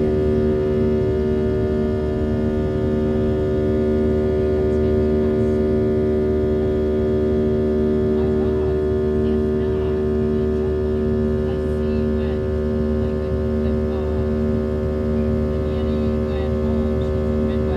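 Steady drone inside the cabin of a Boeing 737-700 with CFM56 jet engines running, a layer of fixed humming tones over a low rushing noise that does not change.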